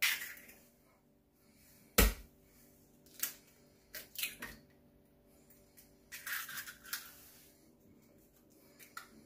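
Raw eggs being cracked one after another over a ceramic plate: sharp knocks of shell being struck open, the loudest about two seconds in, and short crackles as the shells are pulled apart.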